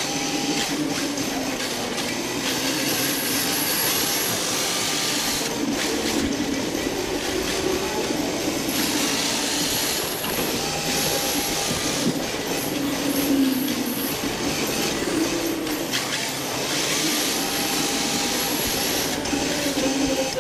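Onboard sound of an RC drift car in a tandem drift: the hard drift tyres hiss and squeal as they slide sideways across the smooth floor, over a thin whine from the electric motor. The tyre hiss swells and fades in long waves every several seconds as the car goes into and out of each slide.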